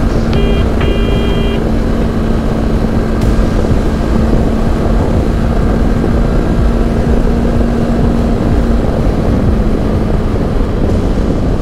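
Honda CB500X's parallel-twin engine cruising steadily at about 110 km/h, under loud wind rush on the helmet microphone. Two short high beeps sound in the first second and a half.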